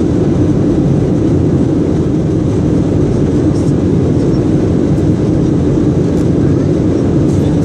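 Steady, loud cabin roar of a Boeing 737 airliner climbing after takeoff, heard from a window seat over the wing: jet engine noise and rushing airflow, deep and unchanging.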